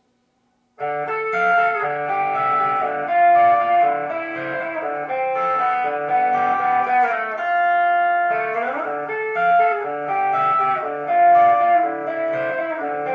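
Electric guitar playing a melody, starting about a second in, with a long held note and a note sliding up in the middle.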